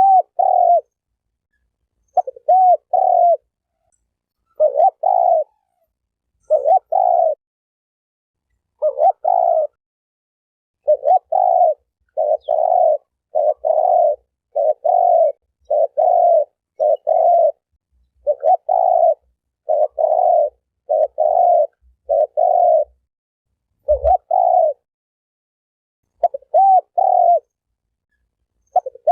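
Spotted dove cooing: short phrases of two or three hoarse coo notes, repeated about every second or two with clean silence between them, as in a looped recording. A brief low thump about 24 seconds in.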